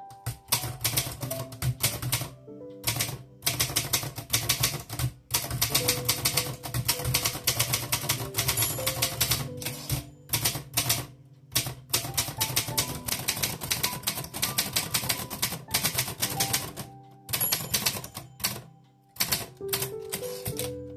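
Typing on a 1949 Erfurt (Olympia) Progress manual typewriter: fast runs of key strikes broken by short pauses. Background music plays underneath.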